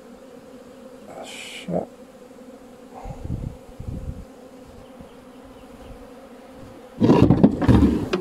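Honeybee colony buzzing steadily around an opened hive, with scraping and knocking from a hive tool and wooden frames being lifted and handled. A short scrape comes about a second and a half in, a few low knocks around the middle, and the loudest handling noise near the end.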